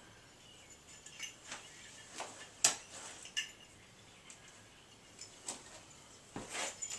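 A few scattered light clicks, clinks and knocks of tools and old metal door hardware being handled, the sharpest about two and a half seconds in.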